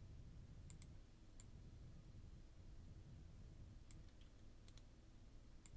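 Near silence over a low steady hum, with a handful of faint, sharp computer clicks, some coming in quick pairs, as the mouse and keys are worked.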